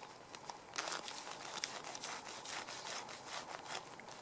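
A knife and plastic-gloved fingers working a fermented Baltic herring (surströmming) on a wooden board: faint, irregular crackling and scraping with many small clicks.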